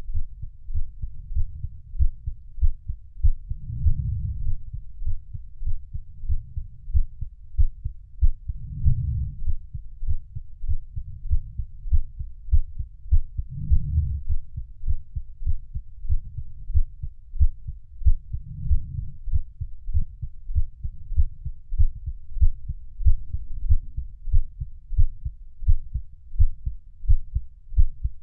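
Heartbeat: deep, muffled thuds in a steady rhythm of about one a second, with a low swell every five seconds or so.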